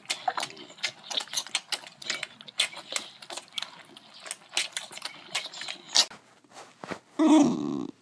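Quick, irregular clicking and tapping, then a short, loud dog call about seven seconds in.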